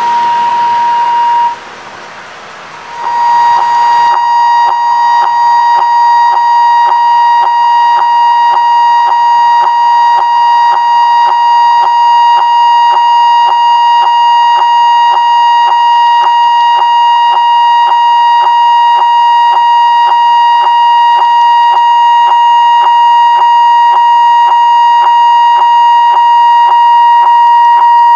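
Railway level-crossing warning signal: a loud, steady electronic tone with a repeating ding about twice a second. It cuts out briefly about a second and a half in, then starts again and keeps sounding.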